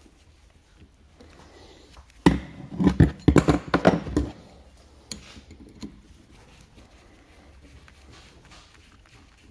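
A burst of irregular metal knocks and clatter from hand tools and pump parts being worked, starting about two seconds in and lasting about two seconds.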